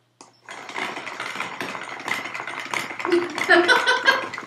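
Small electric motor of a homemade cardboard-box robot buzzing and rattling, starting about half a second in. A woman laughs over it near the end.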